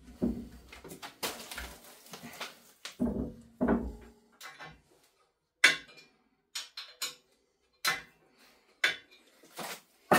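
Metal parts of a Neureiter Twister XL lathe being handled as the bed extension is lined up with the main bed and its clamping plate is set over the seam. The sound is irregular knocks, clinks and scrapes of metal on metal, with a few sharp clanks in the second half.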